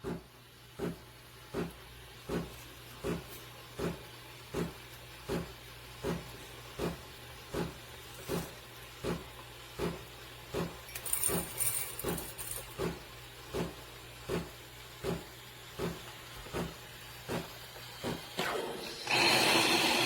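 Breville Barista Touch espresso machine running with a steady hum and a regular pulse about every three-quarters of a second. About nineteen seconds in a louder hiss of steam or water starts.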